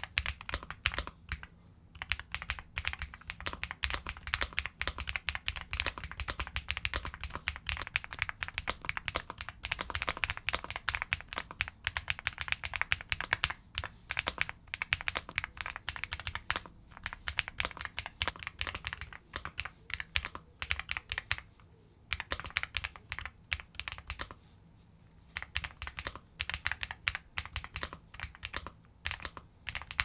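Typing on an Epomaker x Feker Galaxy80 mechanical keyboard with Feker White Marble linear switches: a quick, continuous run of keystrokes with a lower clash like marbles coming together, rounded off by higher clicks. The typing breaks off briefly twice, about 22 and 25 seconds in.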